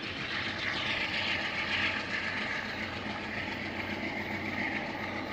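Amtrak passenger train rolling away on curved track: steady wheel-on-rail noise, louder in the first couple of seconds, with the diesel locomotive running underneath.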